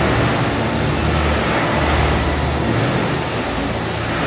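Radio-controlled helicopter flying 3D aerobatics: a steady whir of rotor blades and motor against constant hall background noise.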